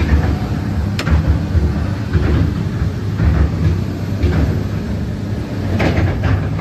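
XCMG XE370DA excavator's diesel engine idling with a steady low rumble, with a sharp click about a second in and a couple more near the end.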